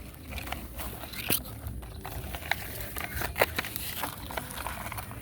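Irregular clicks, taps and light scraping of loose soil and small stones being moved by radio-controlled model construction vehicles, over a low steady hum.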